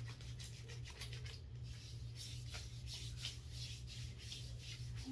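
A hand rubbing body gel cream into bare skin on the shoulder and upper arm: soft, quick swishing strokes, several a second, over a faint steady low hum.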